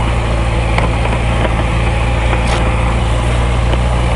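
Kawasaki Ninja sport bike's inline-four engine idling steadily, heard from the rider's seat.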